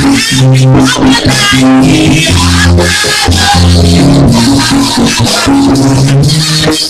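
Loud church worship music without singing: a band plays a bass line whose notes change every half second or so, under a steady rattling percussion beat.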